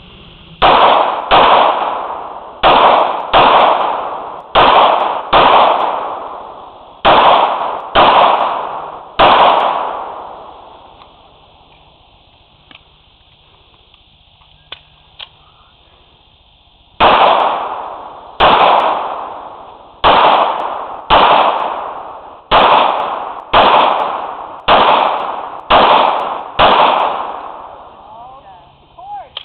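Pistol shots fired in a course-of-fire string: about nine shots, mostly in quick pairs, over the first nine seconds. After a pause of about seven seconds with a few faint clicks, nine more shots follow at a similar pace, each ringing out.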